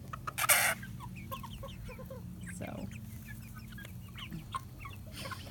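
A mixed flock of young and adult chickens making many short, soft clucks and peeps while they forage on grass. A brief loud burst of noise comes about half a second in.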